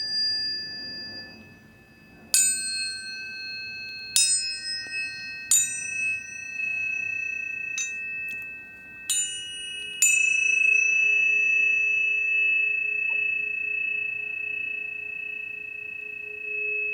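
Tuning forks struck one after another, about six times, each strike a sharp tap followed by a clear ringing tone. The tones overlap and sustain, and the last strike, about ten seconds in, rings on steadily.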